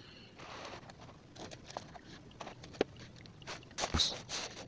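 Faint clicks and light knocks of hands working on the underside of a van's automatic transmission, with a louder knock about four seconds in.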